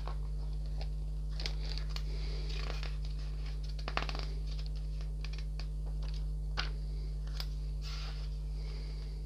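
Pages of a paper model-kit instruction manual being turned and smoothed flat: a string of short rustles and crinkles, over a steady low hum.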